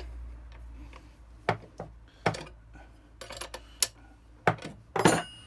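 Metal spanners clinking and knocking on the spindle nuts of a bench polisher as the nuts holding the buffing wheels are tightened by hand. It is a series of sharp metallic clicks, and the loudest comes near the end with a short ring.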